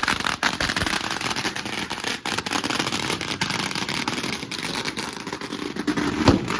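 Firecrackers crackling in a dense, rapid run of small bangs, with one sharper crack near the end.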